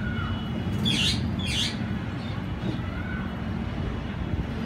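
Steady low rumble of distant traffic, with two short harsh bird calls about a second in and a faint chirp or two.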